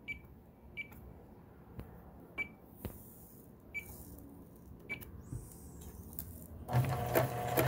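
Kenmore Sensor Sew 70 electronic sewing machine: five short, high beeps as its pattern keys are pressed, with faint handling clicks. About seven seconds in, its motor starts and it stitches with a steady hum and a regular stitching beat.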